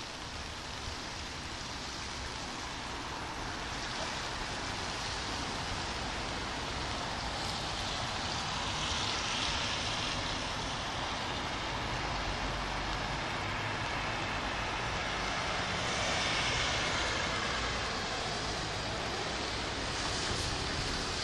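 Steady rain on a city street at night, with the hiss of car tyres on the wet road. The sound swells twice, about a third of the way in and again past the middle, as traffic goes by.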